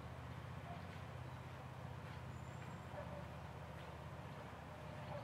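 Faint outdoor ambience: a steady low hum, with a few faint short chirps and ticks and one brief high whistle about halfway through.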